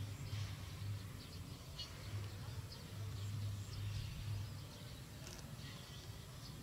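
Outdoor field ambience: faint short bird chirps over a low hum that comes and goes.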